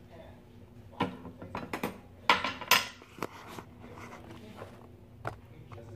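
Metal cookware and utensils clinking and clattering as a roasted chicken is lifted off a countertop oven's metal rack and pan. A quick run of sharp clinks starts about a second in and lasts a couple of seconds, with one more clink near the end.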